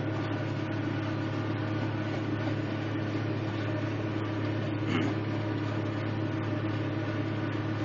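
Claas tractor's engine running steadily under load, heard from inside the cab while it pulls a disc mower-conditioner cutting grass.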